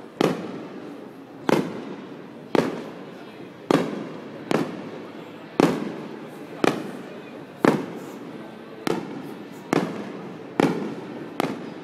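Aerial firework shells bursting overhead: a sharp bang about once a second, about a dozen in all, each trailing off in echo.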